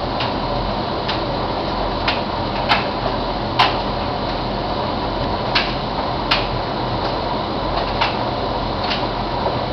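Bosch Logixx 8 washing machine in its main wash: a steady whir of the turning drum and motor, with sharp clicks at uneven intervals, about one a second.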